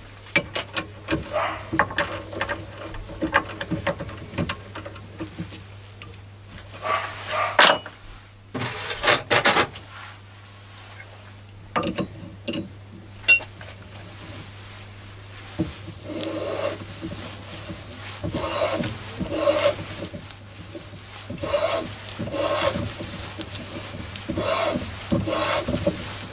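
A 1/4-inch BSP tap turned by hand with a tap wrench, cutting a thread in a chrome-plated brass fitting held in a chuck in a vise. There is metallic scraping and grinding, with a few knocks and clinks in the first half, then even scraping strokes about once a second.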